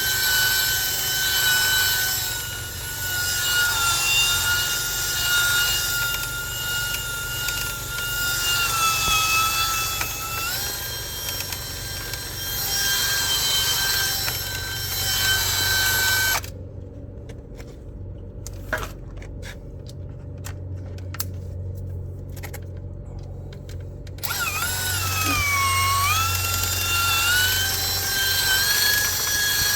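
Power drill spinning a rotary dryer-vent cleaning brush, running with a high whine whose pitch sags and recovers as the brush meets resistance in the duct. The whine drops out for several seconds past the middle, leaving only a low hum and a few clicks, then comes back with deep dips in pitch.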